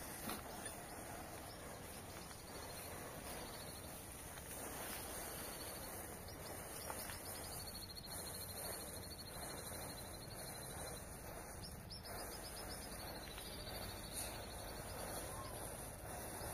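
Matchsticks burning in a row: a soft steady hiss with a few faint crackles as the flame moves along the chain. A high, wavering chirp repeats in the background.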